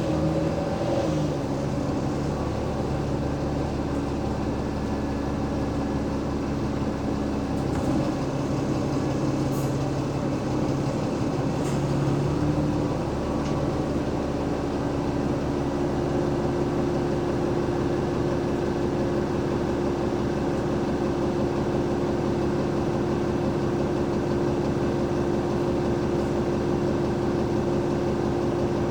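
Cummins ISL8.9 diesel engine of an Alexander Dennis Enviro500 MMC double-decker bus running, heard from on board as a steady low drone with held tones. The pitch drops slightly just after the start, and about halfway through the tones shift and a new steady tone settles in.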